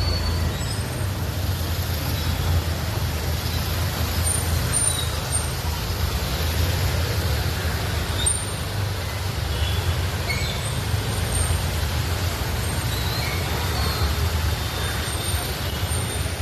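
Road traffic noise: a steady low rumble of passing vehicles with an even hiss over it, and a scatter of short high squeaks.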